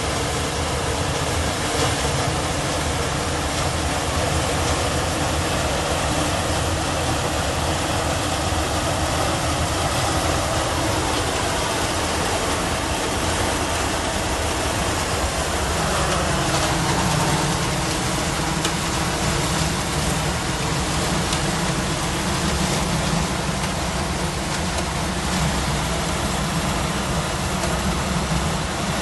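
Kular 995 combine harvester running steadily while harvesting corn: a continuous din of engine and threshing machinery. A little past halfway the sound shifts and a deeper, steady note takes over.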